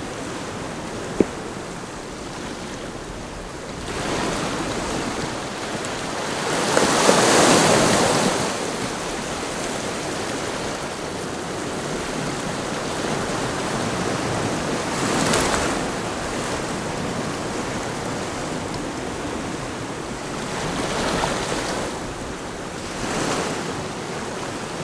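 Sea swell washing against shoreline rocks, surging up and falling back several times, the biggest surge about seven seconds in. A single sharp click about a second in.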